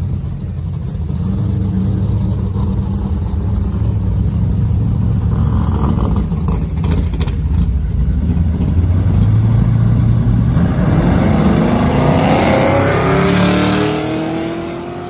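Two drag-racing cars idling with a steady low engine rumble at the starting line, then launching about ten seconds in, their engines rising in pitch as they accelerate hard down the strip. They pass by and fade near the end.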